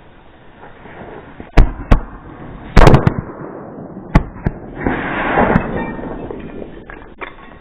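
Firecrackers going off inside a light bulb: a couple of sharp bangs about a second and a half in, the loudest bang near three seconds followed by crackling, then two more bangs and a spell of hissing crackle around five seconds.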